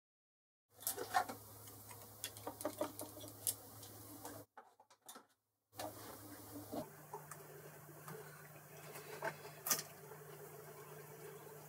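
Boxford lathe turning slowly while a die in a tailstock die holder cuts a 3 mm thread on an aluminium stud: a low hum with irregular light ticks and clicks. The sound drops out briefly about halfway, and after about seven seconds the hum is higher.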